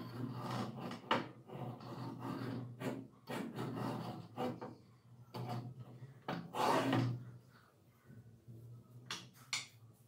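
Angle grinder stand being worked by hand: the grinder swung down on its pivot arm and lifted back, giving a run of irregular rubbing, rattling and knocking noises, the loudest a little past the middle. The grinder motor is not running.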